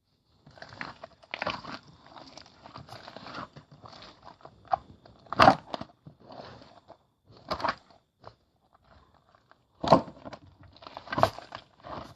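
Irregular crunching and crackling noises with a few louder sudden knocks.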